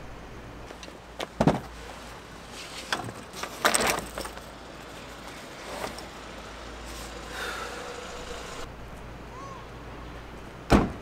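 Car doors and gear being handled: scattered knocks and clatter, the loudest a sharp door slam near the end, over a steady low hum.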